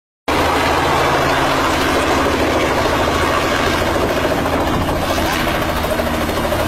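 Robinson helicopter running close by: a steady engine and rotor noise with no let-up.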